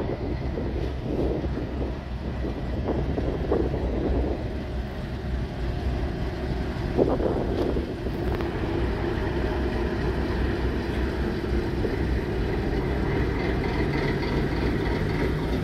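Train passing on the track: a steady low rumble with a few irregular knocks from the wheels over the rails in the first half, and a faint steady tone joining in around the middle.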